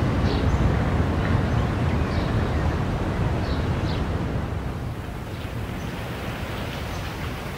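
Steady, low, wind-like rumbling noise that eases a little about five seconds in, with a few faint, short, high chirps over it.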